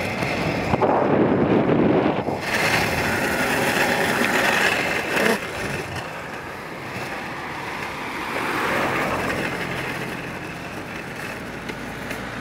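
Inline skate wheels rolling on an asphalt road, a steady rushing noise that is loudest for the first five seconds and then eases off, with a car passing close by about halfway through.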